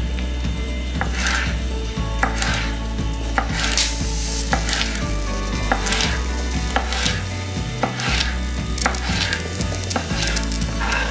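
Chef's knife slicing a raw nopal (prickly pear cactus pad) into thin strips on a wooden cutting board. The cuts come one after another, about one or two a second and not evenly spaced, each ending in a knock of the blade on the board.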